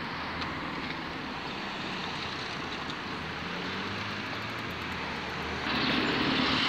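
Road traffic at a level crossing: vehicle engines running with a low hum, then a lorry drives past close by and the sound grows suddenly louder about five and a half seconds in.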